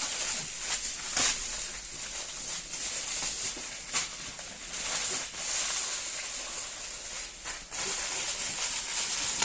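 Honeycomb kraft wrapping paper rustling and crinkling as it is wound around a stack of plates, with a few sharper crackles.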